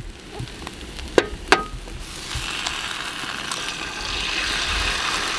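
Eggs frying in a hot pan. Two sharp knocks come first, then a sizzle starts about two seconds in and grows louder.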